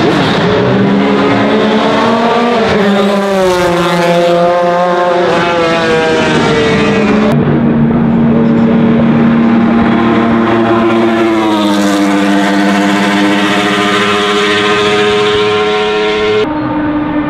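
Racing-car engines at high revs. In the first seconds a GT car's engine climbs and drops through the gears. From about seven seconds in, the Pilbeam MP91's 3.4-litre Willman V6 accelerates hard, its pitch climbing steadily, then shifts up about twelve seconds in and holds high revs.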